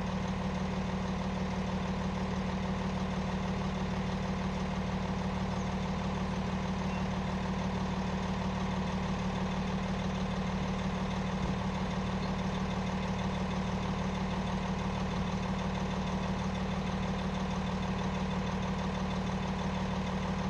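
An engine idling steadily: a constant low drone that doesn't change in pitch or level.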